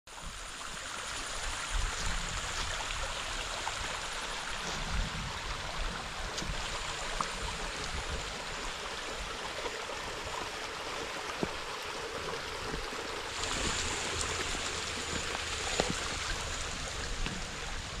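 Small stream running over flat rock: a steady rush of water, with a thin, steady high-pitched whine over it that grows louder about two-thirds of the way in.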